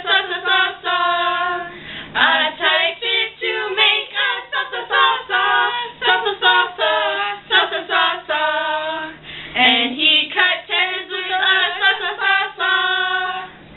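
Three young women singing a song together, unaccompanied, in a steady run of held sung notes.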